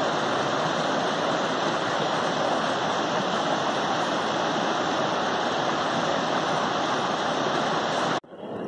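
Mountain stream rushing over rocks: a steady, even rush of water that cuts off suddenly near the end.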